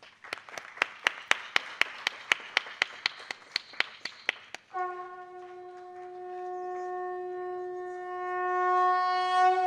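Audience clapping in a steady rhythm, about four claps a second. Then a conch shell is blown in one long steady note that swells louder near the end.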